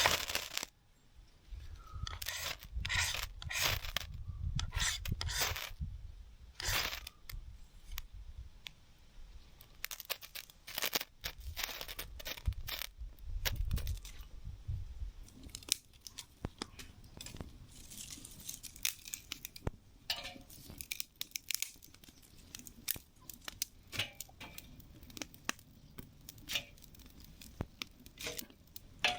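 Irregular rustling, scraping and clicking of things being handled, with a low rumble through the first half.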